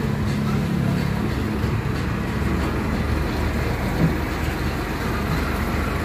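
Steady low mechanical rumble of running workshop machinery, with a single short knock about four seconds in.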